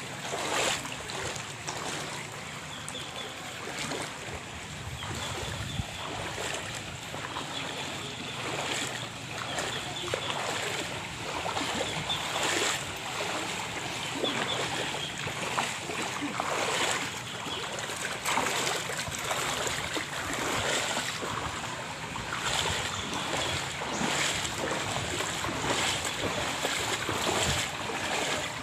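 Feet wading through shallow floodwater, splashing step after step about once a second over a steady wash of noise.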